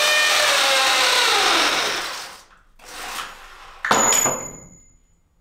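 Corded electric drill run against a wall, starting suddenly and slowing, its pitch falling over about two seconds. Two shorter runs follow, the last leaving a brief high ringing as it winds down.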